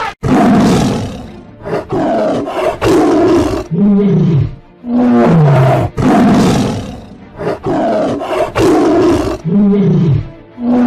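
A series of loud animal roars, about eight in a row, each lasting about a second, some ending in a low moan that falls in pitch.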